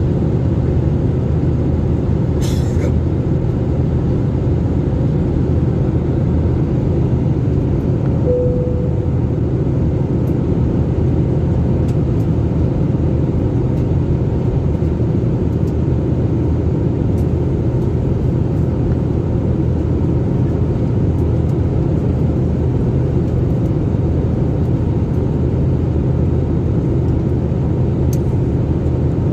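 Steady rumble of airliner cabin noise heard from inside the passenger cabin, with a brief faint tone about eight seconds in.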